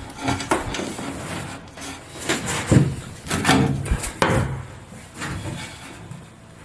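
Irregular knocks, scrapes and creaks of a loose boat interior panel being handled and worked free.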